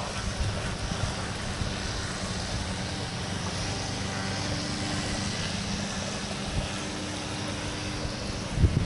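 Steady outdoor noise of wind and a light sprinkle of rain, with a faint distant engine hum through the middle.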